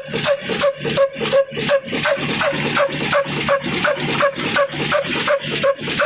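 Old stationary diesel engine running steadily, its exhaust beating evenly at about three beats a second, each beat carrying a short high note.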